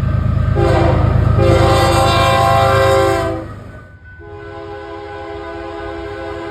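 Train air horns sounding at a crossing over the low rumble of the train: a loud multi-note horn chord begins about half a second in, breaks briefly, and stops after about three seconds. After a short dip a quieter horn chord begins and holds steady.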